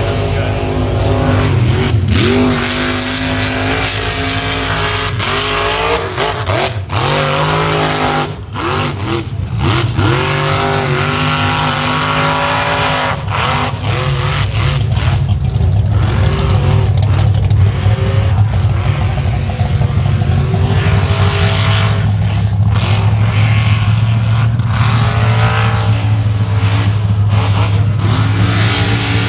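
Mud bog truck's engine revving hard as it drives through the pit, its pitch climbing and falling again and again, over a steady low engine drone.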